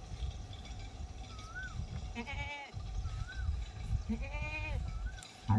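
Sheep bleating: two short bleats about two seconds apart, over a low background rumble.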